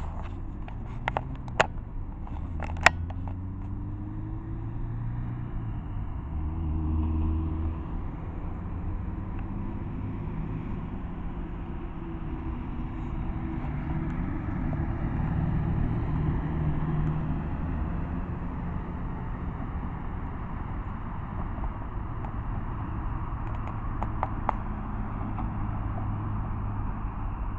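Road traffic on a multi-lane road, engines swelling and fading as vehicles pass, loudest as a tip truck goes by about halfway. A few sharp clicks in the first three seconds.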